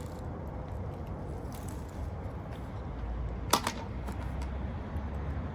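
A single sharp knock about three and a half seconds in, over a steady low rumble.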